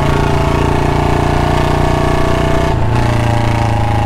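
Royal Enfield Bullet's single-cylinder engine running while the motorcycle is ridden, a steady exhaust beat; the note shifts about three seconds in.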